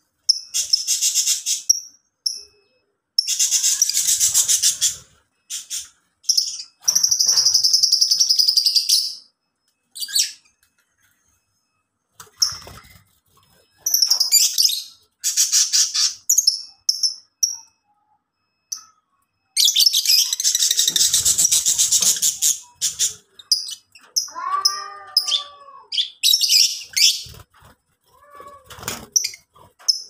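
Lovebirds chattering in shrill, rapid bouts of one to three seconds, with short pauses between. Near the end a lower, wavering call breaks in.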